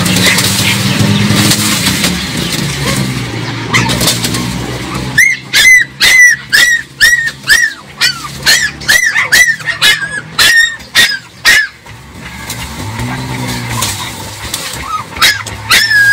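A puppy yelping, a quick run of short high yelps at about two a second that lasts some seven seconds, starting about a third of the way in. Before it, dry grass and brush rustle as they are pulled away.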